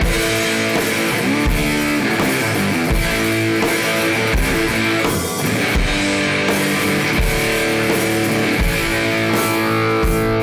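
Rock music: strummed electric guitar over a steady drum beat.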